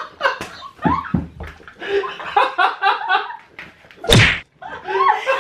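A loud smack against a plastic basin held over a man's head about four seconds in, amid laughter and excited voices.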